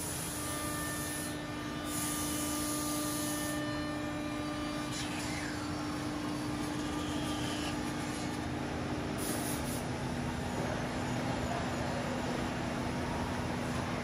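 CNC nesting router and its vacuum table pump running with a steady hum, broken by short hisses of compressed air near the start, around two to three seconds in and again about nine seconds in. A falling whine comes around five seconds in, and the steady tone drops lower in pitch about two-thirds of the way through.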